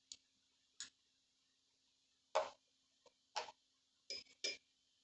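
A spoon tapping lightly against a bowl while spooning in ingredients: a handful of short, irregular taps and clinks.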